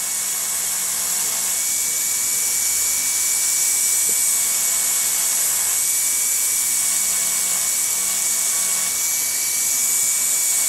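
Rotary tool spinning a soft wire brush at low speed, polishing a small pancake-motor part: a steady motor whine with the brush's even hiss, holding constant throughout.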